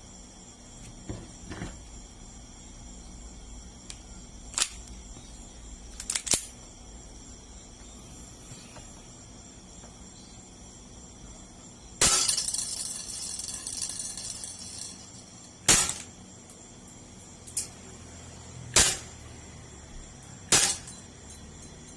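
Airsoft guns (an upgraded VSR-10 spring sniper rifle and a Glock 18C pistol) fired at a can in single sharp shots spaced a few seconds apart. About halfway through, a loud hiss sets in and fades over some three seconds.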